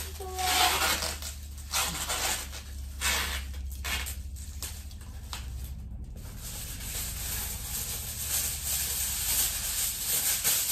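Aluminium kitchen foil crinkling and rustling as it is handled and pressed into shape, in a run of short crackly bursts, then a steadier rustle in the second half.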